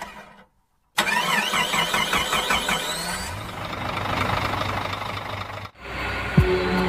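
Sound effect of the channel's animated intro: a dense, fast-warbling sound with a rising sweep about three seconds in, which cuts off abruptly near the end. Background music with steady tones and a low beat starts right after.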